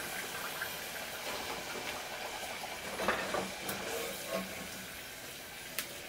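Hot cooking oil hissing steadily in a saucepan during the second, high-heat fry of potato wedges as they are lifted out with a wire spider skimmer. A few light knocks from the skimmer come about three seconds in, and a sharp click comes near the end.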